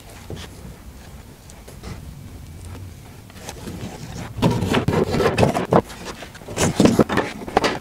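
Glued tongue-and-groove pallet slats being laid down and shifted into place across steel pipe clamps: irregular wooden scraping and knocking, loud from about four seconds in after a quieter start.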